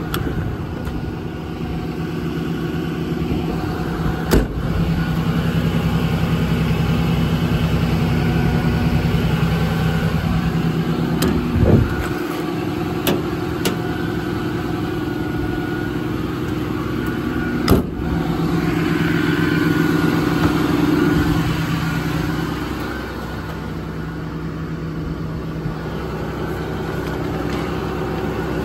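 Ram 5500's 6.7 Cummins diesel idling steadily. Over it come a handful of sharp clicks and knocks from service-body compartment latches and doors being opened and shut, the loudest a little before halfway.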